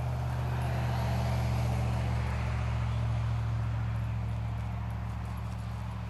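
A vehicle driving past, its road noise swelling to a peak a second or two in and then slowly fading over a steady low hum.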